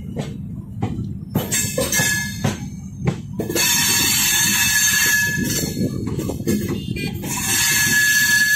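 Passenger train coach wheels rolling over the tracks and points: a steady rumble with sharp clacks for the first few seconds, then high metallic screeching in two stretches, from about three and a half seconds in and again near the end.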